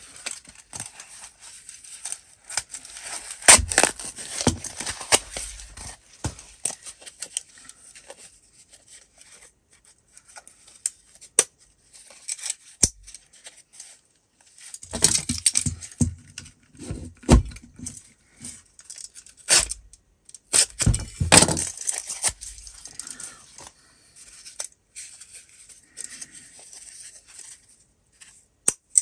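Card stiffener and cover material of a Filofax being torn and ripped by hand away from its riveted metal ring mechanism. The tearing comes in several bouts, with sharp clicks and knocks in between.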